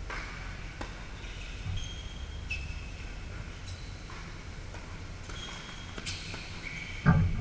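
Tennis balls struck by rackets during doubles rallies on indoor hard courts, sharp knocks a second or two apart. Short high sneaker squeaks on the court surface come between the hits, and there is a louder thump near the end.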